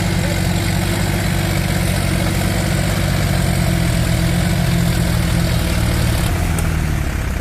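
Tractor engine running steadily with a deep, even note.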